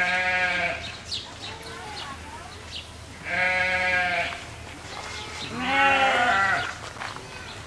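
Bleating livestock, a sheep or goat, calling three times in long, drawn-out bleats a few seconds apart. The third bleat is the loudest and wavers in pitch.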